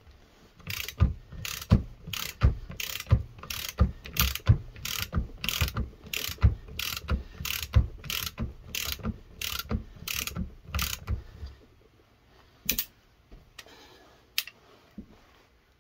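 Hand ratchet clicking in an even rhythm, a little under two clicks a second, as it turns a lug nut on a wheel stud. The clicking stops about eleven seconds in, followed by two lone clicks.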